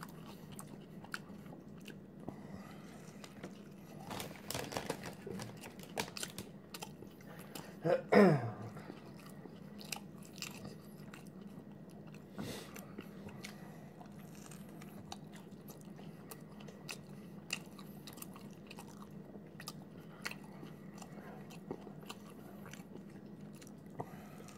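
Close-miked chewing and biting of a soft chicken wrap, with many small mouth clicks. About eight seconds in there is a brief, louder vocal sound that falls sharply in pitch.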